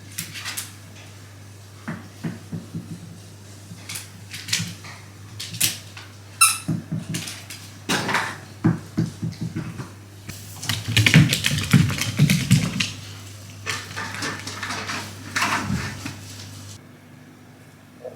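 A cat and a dog scuffling in play: irregular clicks, taps and knocks of paws and claws on a hard floor, loudest and densest about eleven to thirteen seconds in, with one brief high-pitched squeak about six seconds in.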